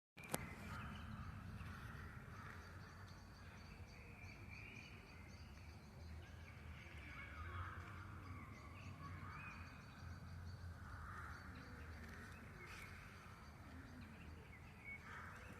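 Birds calling and chirping in a park, faint over a steady low background rumble, with a single sharp click right at the start.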